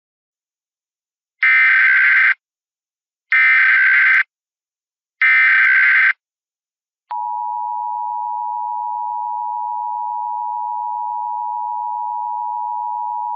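Emergency Alert System SAME header: three identical bursts of screechy digital data tones, each just under a second long and about two seconds apart. They are followed about seven seconds in by the steady two-tone EAS attention signal, which holds without a break and is quieter than the bursts. Together they mark the start of an emergency alert broadcast.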